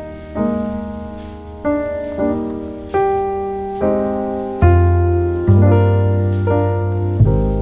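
Background piano music: slow notes and chords struck about once a second, each ringing and fading before the next.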